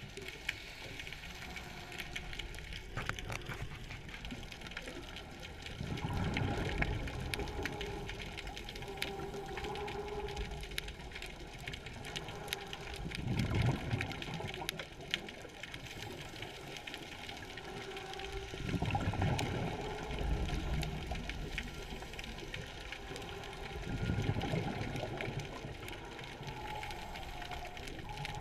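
Underwater sound of a scuba diver breathing through a regulator: a bubbling exhalation about every five or six seconds, over a steady underwater hiss.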